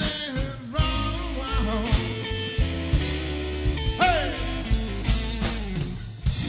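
Texas blues band music: electric guitar lines with sliding notes over drums.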